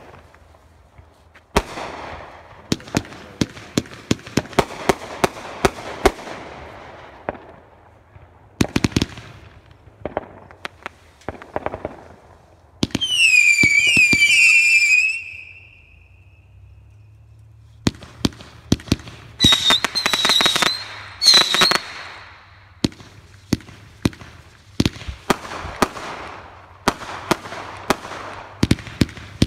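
Fireworks going off in quick succession: roman candles and aerial shells popping and bursting in many sharp bangs, with crackling in between. About 13 s in, a loud warbling whistle from a whistling firework lasts about two seconds. Around 19 to 22 s, several shorter, higher whistles sound among the bangs.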